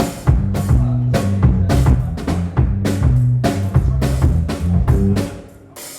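Band playing in a soundcheck: a drum kit beating a steady rhythm over low bass notes, stopping and dying away near the end.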